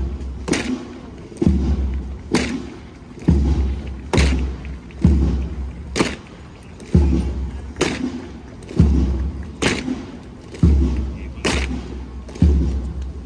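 Slow, even marching beat, a deep thump with a sharp clack about once a second: a bass drum keeping time as Evzones guards march, their hobnailed tsarouchia clogs striking the road.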